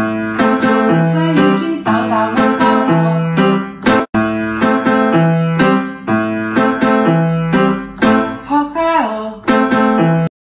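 Background music led by a piano or keyboard, notes struck in a quick, steady run. The sound cuts out briefly about four seconds in.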